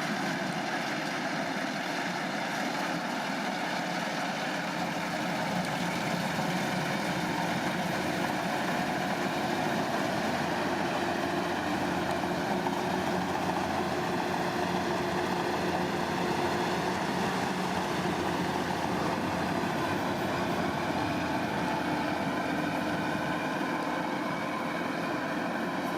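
Rice combine harvester running steadily, its engine and working machinery making a continuous drone with a few steady hum tones; it grows slightly louder about six seconds in.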